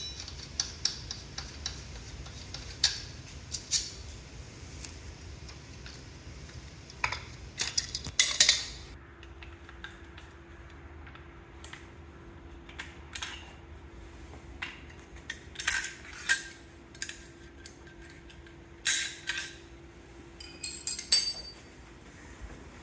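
Scattered metallic clicks and clinks from a rifle and its bipod being handled: the bipod clamp and legs worked by hand, then the rifle picked up and turned over, coming in small clusters of a few clicks at a time.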